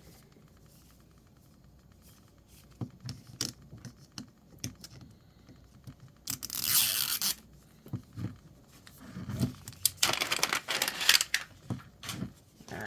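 Plastic wrapping being ripped off a toy capsule ball: a burst of tearing about six seconds in and a longer stretch of tearing and crinkling about ten seconds in, with light clicks and taps of the plastic being handled between them.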